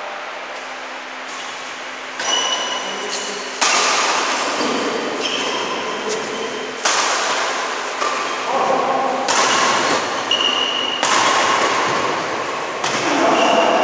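Badminton rally: about six sharp racket hits on the shuttlecock, a second or two apart, each ringing on in the echoing hall, with short high squeaks of shoes on the court between them.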